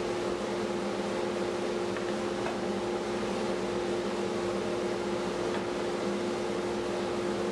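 Steady mechanical hum with a constant tone over an even whooshing noise, like a fan or motor running without change.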